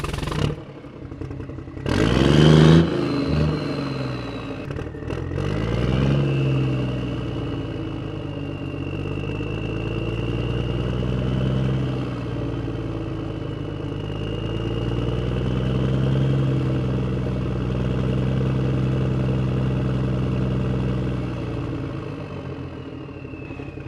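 Tractor engine running under load, its pitch slowly swelling and easing, with a thin steady whine above it. The sound dips briefly just after the start and gives a short loud rev about two seconds in.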